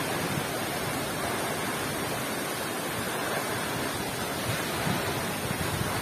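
Steady rushing of a tall waterfall plunging onto rocks, mixed with a rocky stream flowing over stones.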